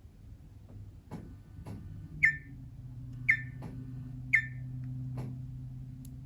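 Nokia C7-00 ringtone: three short, high chime notes about a second apart over a low held tone, with faint clicks in between.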